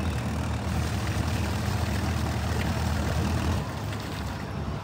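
Heavy-duty dual-rear-wheel pickup truck's engine running under load, straining to pull a heavy boat on its trailer up the ramp. A steady low rumble that eases slightly about three and a half seconds in.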